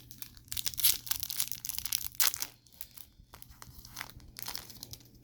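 A baseball card pack's wrapper being torn open and crinkled, loudest in the first half, followed by softer rustling as it is handled.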